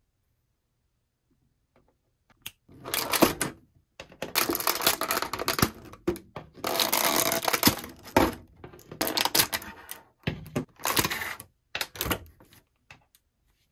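Thin clear plastic blister packaging crinkling and crackling as figurines are worked out of their moulded tray. It comes in several bursts with short pauses, starting about two and a half seconds in.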